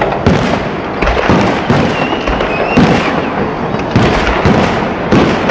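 Fireworks display going off: a dense, continuous run of bangs and crackles, with a brief rising whistle about two seconds in.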